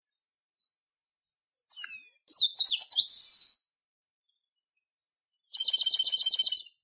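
Chestnut-capped blackbird (garibaldi) singing: a phrase of gliding whistles and buzzy notes, then, after a pause of about two seconds, a fast, even trill near the end.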